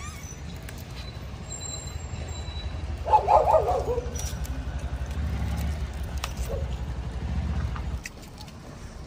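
Low steady rumble of a motor vehicle running close by, which stops about eight seconds in, with a short, loud pitched animal cry about three seconds in.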